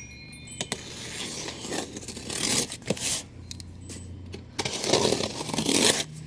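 Cardboard packaging being handled and shifted: irregular scraping and rustling with a few light clicks.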